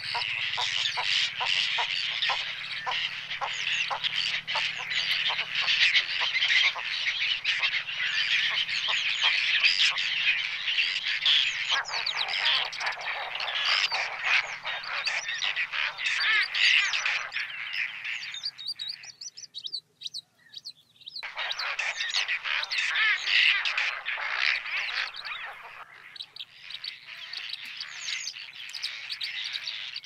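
A dense chorus of many birds calling at once from a large flock of waterbirds, short calls overlapping without a break. The chorus drops out for about two seconds a little past halfway, then starts again.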